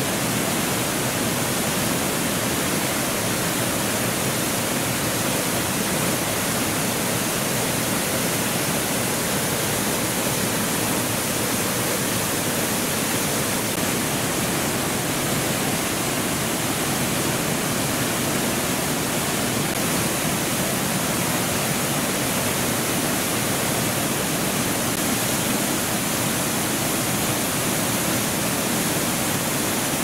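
Waterfall plunging over rock into a pool: a steady, unbroken rush of water.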